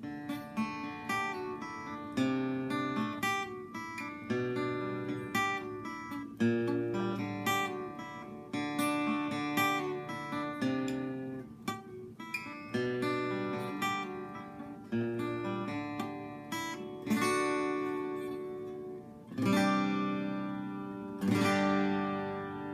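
Steel-string acoustic guitar with new D'Addario EXP19 coated strings in E standard tuning, played unaccompanied: a run of picked notes and chords, then three fuller strummed chords in the last few seconds, the final one left ringing.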